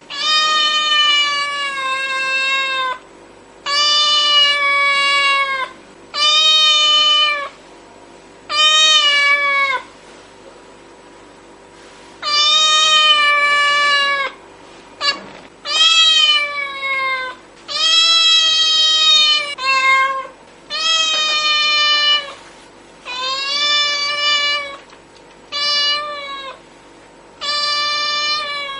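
Cat meowing very loudly over and over: about a dozen long, drawn-out meows, each a second or two long and dipping in pitch at the end, with a pause of about two seconds near the middle.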